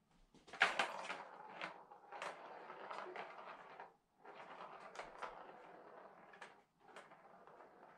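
Plastic ball rolling around a Catit Senses Super Roller Circuit plastic track as a cat swats it: a rattling roll with sharp clicks, in three runs with short breaks about four seconds and six and a half seconds in.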